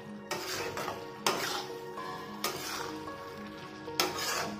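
A spatula scraping and stirring a thick cabbage and potato curry around a metal kadai, four strokes roughly a second apart, over steady background music.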